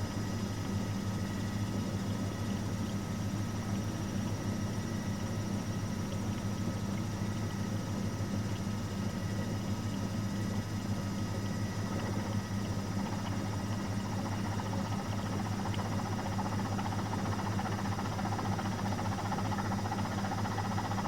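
Miele Professional WS5436 washing machine running, a steady low hum with no changes.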